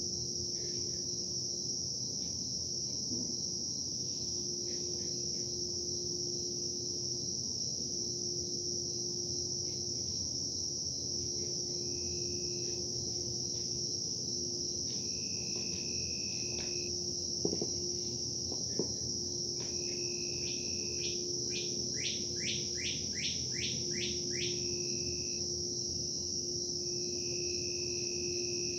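Insect chorus, a steady high-pitched trill, over a low steady hum that comes and goes, the industrial noise the recording was made to capture. Scattered short chirps join in, with a quick run of falling chirps a little over twenty seconds in, and two sharp clicks just before.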